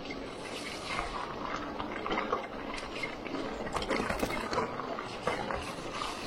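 Irregular wet splashing and dripping of water, with many small crackling splashes.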